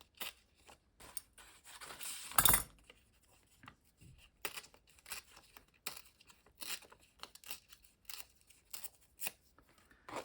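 Paper from a catalog being torn by hand in many short rips and rustles, with one louder rip about two and a half seconds in.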